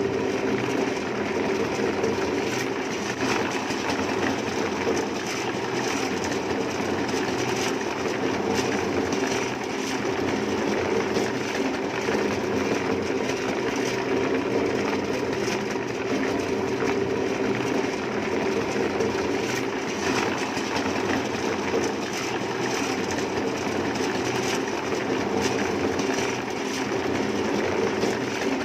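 A motor-driven machine running steadily with an even hum and a faint fast rattle.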